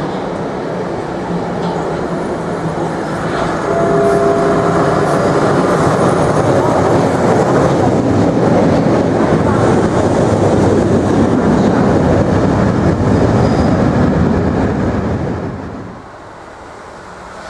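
Vintage Hamburg U-Bahn train running into an elevated station and past the platform, with rail rumble and wheel clatter; it gets louder about three seconds in, with a brief squeal a second later. Near the end the sound drops to a quieter, distant train.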